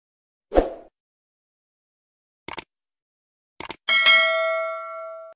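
Subscribe-button animation sound effects: a short thump, then two pairs of quick mouse clicks, the second followed at once by a notification bell ding that rings out for about a second and a half before cutting off.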